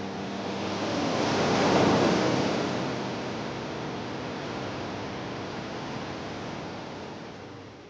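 Ocean surf: the rush of a wave swells to a peak about two seconds in, then eases off into a steady wash that fades near the end.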